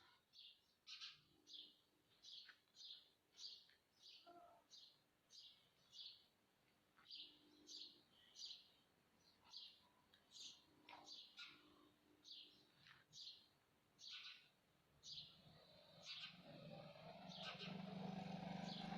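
Faint bird chirping: a short high note repeated about twice a second. A low steady hum comes in near the end.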